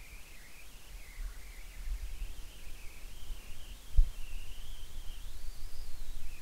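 Low background rumble with a faint, slowly wavering high-pitched whine, and one short knock about four seconds in.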